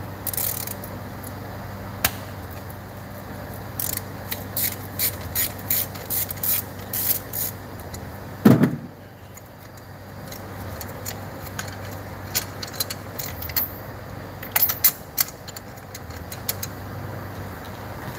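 Hand socket ratchet clicking in short runs, about three clicks a second, as a spark plug is turned out with a plug socket and extension. A single dull thump about halfway through.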